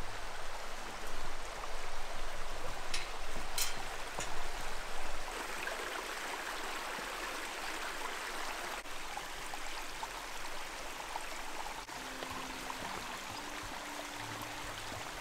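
Stream flowing steadily, a continuous watery rush, with a few light knocks in the first few seconds. Soft background music comes in near the end.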